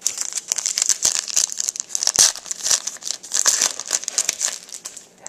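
A trading-card pack wrapper being torn open and crinkled by hand, a dense crackling rustle that starts abruptly and runs for about five seconds.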